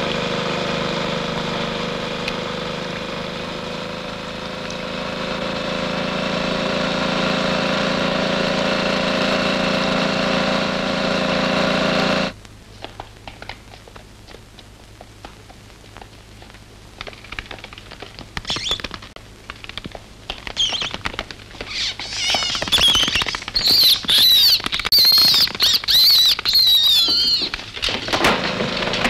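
A motor engine running steadily for about twelve seconds, then cutting off abruptly. After a quieter stretch with scattered clicks, birds chirp, sparse at first and then busier and louder near the end.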